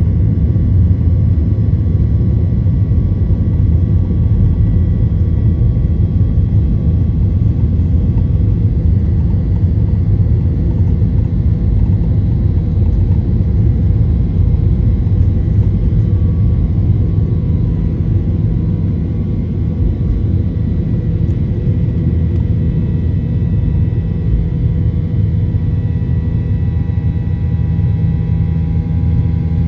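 Boeing 737-800's CFM56 jet engines heard from inside the cabin: a steady, loud rumble with faint steady whining tones above it, easing slightly about two-thirds of the way through.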